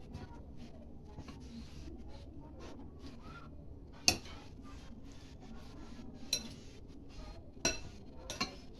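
Metal spoon stirring a soft mash of sweet potato and chopped vegetables in a glass bowl, with four sharp ringing clinks of the spoon striking the glass, the loudest about four seconds in.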